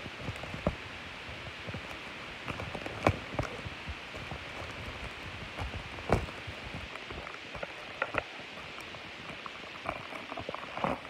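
Plastic mailer bag crinkling and rustling as it is handled and picked at to get it open, with irregular sharp crackles, the loudest about three and six seconds in.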